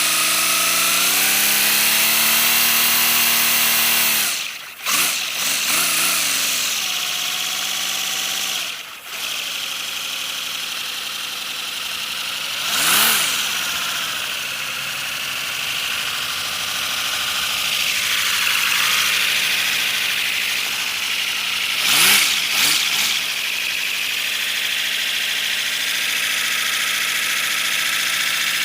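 3D-printed V12 air engine running on compressed air: a steady mechanical whir over a loud hiss of air, speeding up in the first couple of seconds. It falters twice in the first ten seconds, with sudden drops in sound, and dips and recovers in pitch twice later on.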